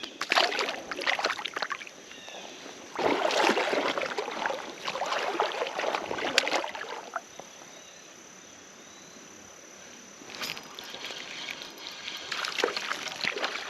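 Shallow creek water sloshing and splashing in three bursts, with quiet stretches between, as from wading.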